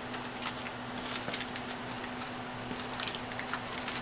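Light, irregular clicking and crinkling of a clear plastic bag of model-kit parts being handled over a cardboard kit box.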